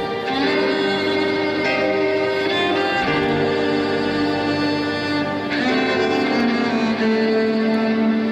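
Solo violin playing a slow melody of long held notes.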